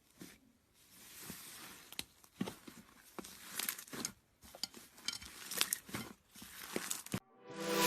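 Slime being pressed and squished by hand, giving irregular soft crackles, sticky pops and brief crinkly swells. Music starts just before the end.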